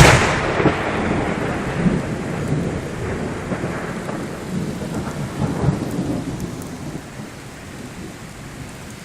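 Thunder: a sudden loud clap, then a long rolling rumble that slowly fades over about seven seconds, with steady heavy rain throughout.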